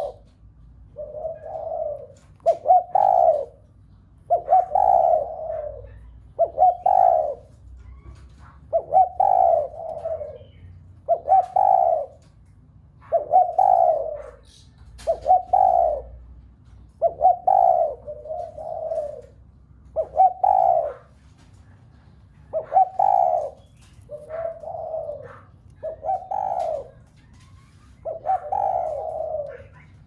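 Spotted dove cooing over and over: a short phrase of a few deep notes about every two seconds. This is the fast, insistent 'gáy thúc' coo that stirs other doves into calling.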